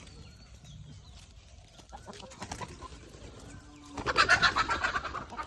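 Free-range chickens: faint bird chirps at first, then loud clucking and squawking from about four seconds in.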